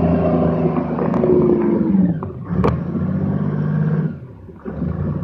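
Detroit Diesel 6V53 engine of an M113A1-hull tracked reconnaissance vehicle running under way, its pitch falling about two seconds in. A single sharp knock sounds near the middle, and the engine noise drops away briefly past four seconds before picking up again.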